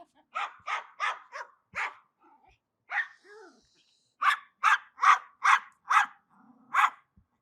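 Angry dog barking in rapid volleys: a quick run of five barks, a single bark, then another run of six sharp barks.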